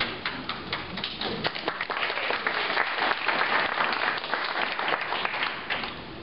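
Small audience applauding, the clapping thinning out and dying down near the end.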